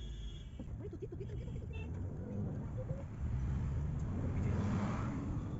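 Car engine and road noise, a steady low rumble that gets louder about three seconds in.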